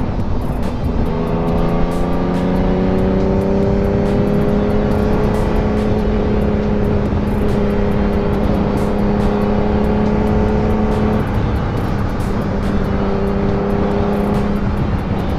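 Sport motorcycle engine running at cruising speed, its pitch rising slowly and then dropping about eleven seconds in, under steady wind noise on the rider's microphone.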